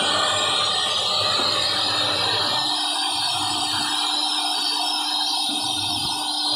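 CNC router spindle cutting grooves into a wooden board: a steady tone under a continuous cutting hiss.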